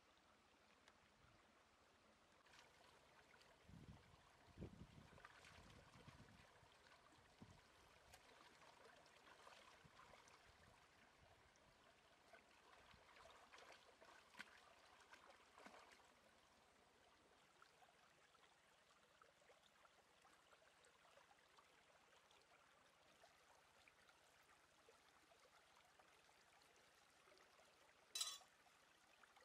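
Near silence, with faint soft thuds and rustling in the first half and one brief sharp noise near the end.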